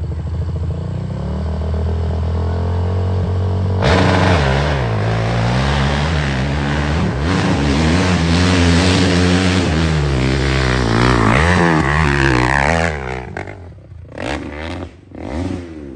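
Off-road dirt bike engine running steadily at low revs, then about four seconds in opening to full throttle and running hard, the revs rising and falling repeatedly as it climbs loose dirt. It drops away about thirteen seconds in, with a couple of short blips of throttle after.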